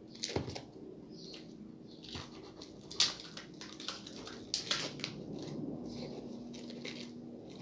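Plastic cling film crackling and crinkling as fingers pick at the roll to find and peel back its loose edge: irregular small crackles, the loudest about three seconds in.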